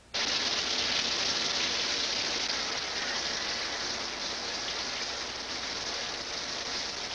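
Shower head spraying water in a steady hiss of falling water that starts suddenly at the very beginning.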